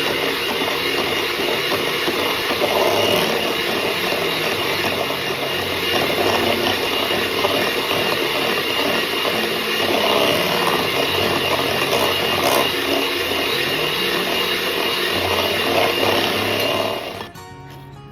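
Electric mixer running steadily with a constant whine, beating the first cup of flour into a butter, sugar and egg batter; it switches off abruptly near the end.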